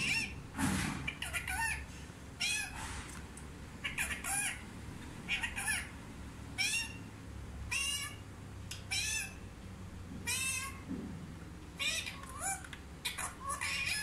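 Indian ringneck parrot calling: a string of short, high calls with curving pitch, roughly one a second.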